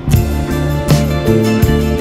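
Background music: held instrumental notes over a steady beat.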